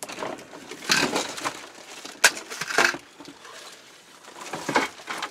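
Wire top of a small-animal cage being lifted off its plastic base and out of a cardboard box: irregular rattling and scraping of the metal mesh and rustling cardboard, with one sharp knock a little over two seconds in.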